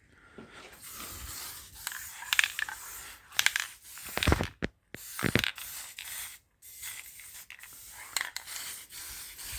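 Aerosol spray-paint can hissing in a run of bursts with short breaks, as paint is sprayed onto metal parts.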